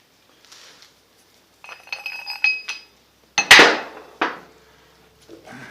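Steel post vise parts being handled: a run of light metallic clinks with a ringing tone, then a loud clank about three and a half seconds in and a lighter knock just after.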